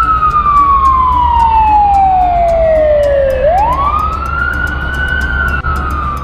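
Fire engine siren wailing: one slow fall in pitch over about three seconds, a quick rise back up about halfway through, then held high, over a steady low rumble.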